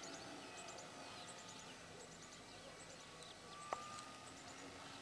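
Faint outdoor background with small birds chirping in short runs of high, falling notes. There is a single sharp click about three and a half seconds in.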